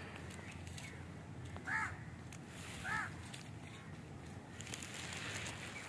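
Two short, faint crow caws a little over a second apart.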